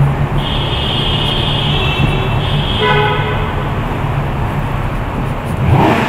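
Vehicle horns honking in a road tunnel, heard from inside a moving car over the steady rumble of traffic and tyres. A long high honk lasts about two and a half seconds, then a short, lower toot comes about three seconds in. The traffic noise swells louder near the end.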